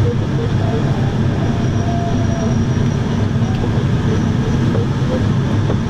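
Steady rush of air over an Open Cirrus sailplane's canopy, heard from inside the cockpit as the engineless glider descends without lift. Faint electronic tones from the audio variometer sound through it, one short held tone about two seconds in.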